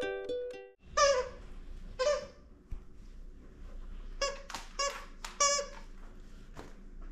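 The last notes of ukulele music, then the squeaker in a plush alligator dog toy (KONG Cozie) squeaking as a dog chomps it: about seven short squeaks, two about a second apart, a quick run of four, and one more near the end.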